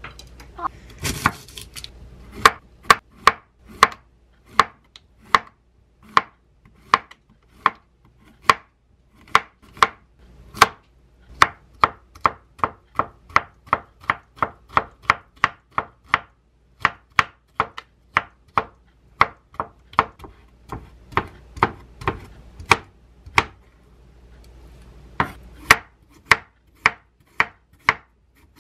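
Kitchen knife slicing zucchini, then a potato, on a wooden cutting board: a steady run of sharp knocks, about two to three a second, as the blade hits the board, with a short pause near the end. A brief rustle about a second in.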